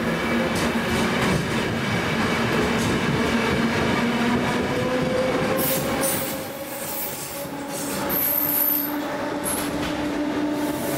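ÖBB class 4020 electric multiple unit running past, its wheels clicking over the rail joints. High-pitched wheel squeal sets in about halfway through as the last cars go by.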